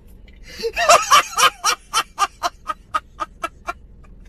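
A man laughing loudly and hard in rhythmic 'ha-ha-ha' bursts, about four a second, with the strongest burst about a second in.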